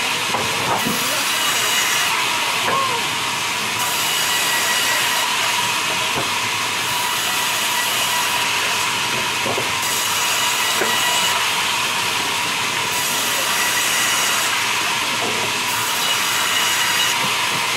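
Sawmill band saw running steadily while small round logs are fed through it lengthwise, with a faint steady whine. The hiss of the cut brightens and dims every couple of seconds as pieces pass the blade.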